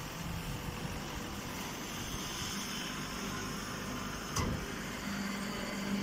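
Vertical straw baling machine with its feed conveyor running: a steady mechanical noise, with a sharp knock about four seconds in and a steady low hum setting in about a second later.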